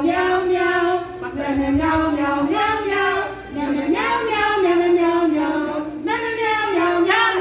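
A small group of women singing a song together without accompaniment into a handheld microphone, in held notes that move up and down in a melody.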